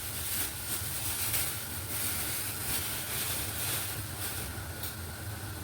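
Food frying in hot oil: a steady sizzle with a low hum beneath it.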